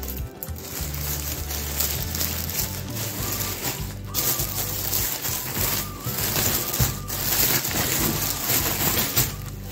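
Plastic courier bag crinkling and rustling as a foam seat cushion in clear plastic wrap is pulled out through a cut in it, over steady background music.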